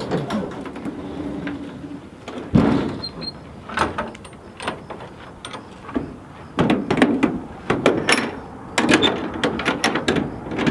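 Rear double doors of an enclosed cargo trailer being shut, with a heavy thud about two and a half seconds in as a door closes, followed by repeated metallic clanks and clicks as the latch bars are locked.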